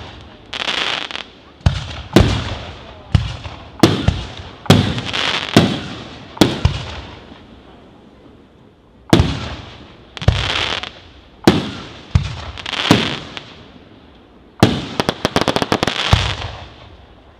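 Aerial fireworks bursting: a series of sharp bangs, each trailing off in a fading hiss, with a short lull midway and a quick run of rapid reports about fifteen seconds in.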